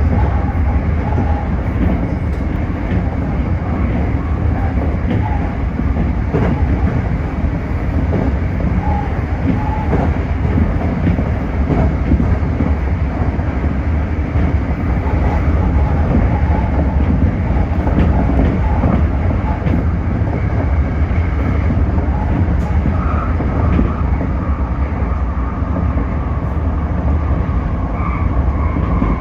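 Tōyō Rapid Railway 2000 series electric train running, heard from on board: a steady rumble of wheels on rail with some clickety-clack and a faint whine in the last few seconds.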